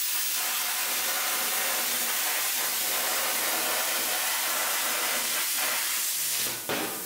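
Small plasma cutter cutting thin cold-rolled black sheet steel: a steady hiss of the arc and air jet that stops shortly before the end.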